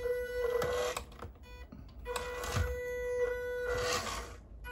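Stock electric motor and gear drive of a WPL C74 Jimny 1/10 RC car whining at one steady pitch with a hiss of gear noise, in throttle bursts: about a second at the start, about two seconds from two seconds in, and briefly near the end.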